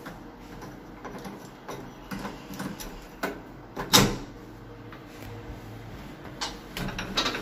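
Stainless round doorknob being pushed and worked onto a knob lock's spindle: scattered light metal clicks and rattles, with one sharp click about four seconds in.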